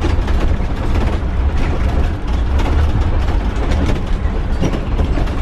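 2013 IC CE300 school bus driving over a bumpy unpaved road: a steady low engine and road rumble, with constant rattling and clicking from the body and fittings as it jolts over the bumps.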